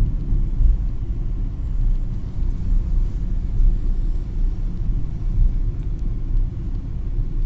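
Steady low rumble of a car driving slowly along a street, heard from inside the cabin.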